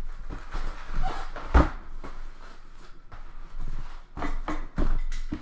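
Cardboard boxes of trading cards being handled and opened: a few sharp knocks, the loudest about one and a half seconds in, with rustling in between.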